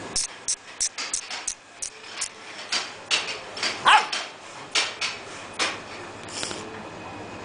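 A two-month-old Saint Bernard puppy barking in a run of short, sharp yips, about a dozen in quick succession. The loudest is a higher yip about four seconds in, and the barking stops after about six seconds.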